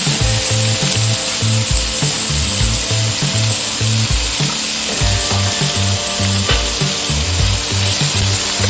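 Onions sizzling as they fry in hot oil with fennel seeds: a steady hiss, over background music with a repeating bass line.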